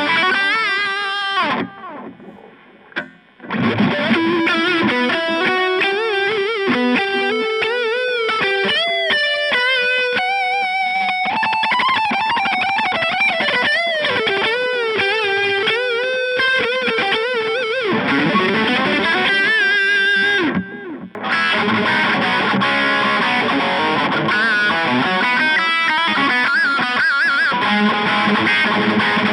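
Solar A1.6D electric guitar played through a Boss Katana Mini 7-watt practice amp: melodic lead lines with wide vibrato and bends. The playing breaks off briefly about two seconds in and again about 21 seconds in.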